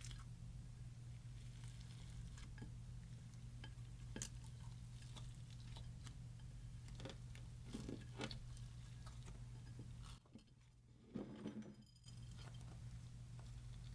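Clear slime being stirred and squished by hand, giving faint, scattered sticky clicks and soft wet pops.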